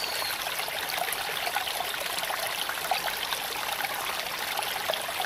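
Steady patter and trickle of water running and dripping down a mossy rock wall into a pool.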